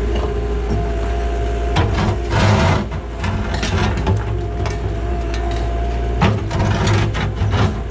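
An excavator's diesel engine runs steadily, with a hydraulic whine rising and dropping in pitch. The bucket scrapes and cracks through old concrete and asphalt, with bursts of grinding and knocking about two seconds in and again near the end.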